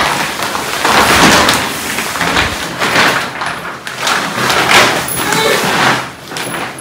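Plastic packaging of a rolled, compressed mattress rustling and crinkling as the bundle is dragged and pushed across a tiled floor, with knocks and thumps as it is handled.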